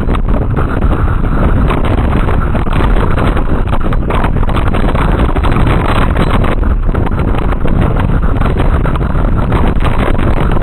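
Train running at speed, heard from an open window: a loud, steady rumble of wheels on rails, with wind buffeting the microphone.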